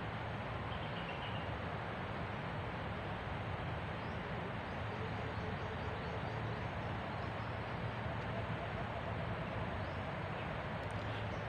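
Steady outdoor forest background noise, an even rushing hiss with no distinct calls or knocks.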